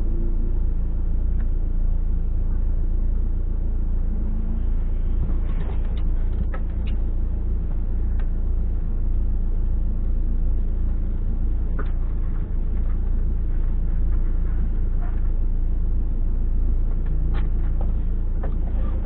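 Alfa Romeo car engine idling steadily, heard from inside its stripped-out cabin, with a few scattered clicks and knocks as the driver gets in and puts on his helmet.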